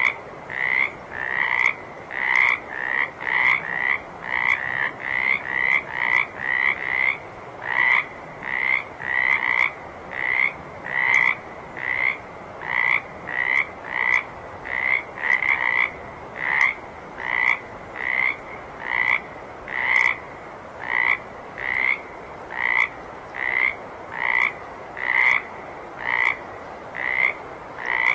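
Water frog croaking over and over in short calls. The calls come about twice a second for the first several seconds, then settle to roughly one a second.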